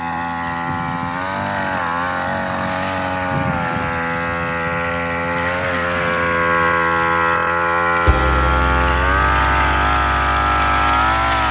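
Small petrol engine of a motorised paddy weeder running, its speed dipping and rising several times. About eight seconds in a deeper, heavier rumble joins in and stays.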